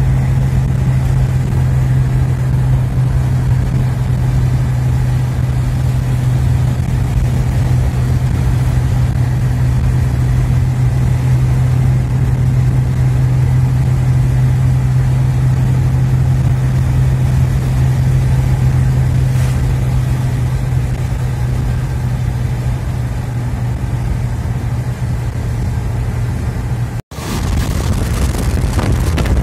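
Steady engine drone and tyre noise on wet asphalt, heard inside a moving car's cabin. About two seconds before the end the sound cuts out suddenly and a rougher noise without the engine drone follows.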